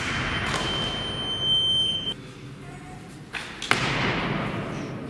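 A loaded barbell with Eleiko bumper plates lands on the wooden lifting platform with a heavy thud at the very start. A steady high beep sounds for about two seconds over echoing hall noise. Near the end there is another sharp thud as a lifter catches a clean in a deep squat, the bar and his feet hitting the platform.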